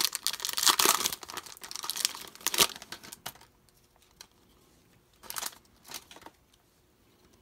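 Foil trading-card pack wrapper crinkling and tearing as it is ripped open, a dense crackle for about three and a half seconds. Then two brief crinkles near the end as the empty wrapper is tossed aside.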